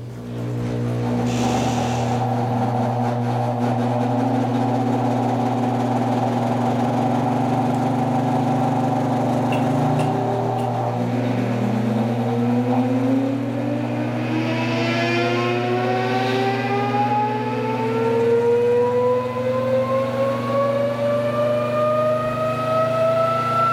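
Electric motor of a motor–generator test rig switched on with a steady electrical hum. About halfway through, its whine rises steadily in pitch as the rotor speeds up.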